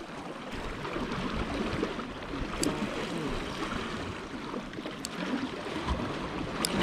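Seawater sloshing and trickling among concrete blocks, with three brief sharp clicks spread through.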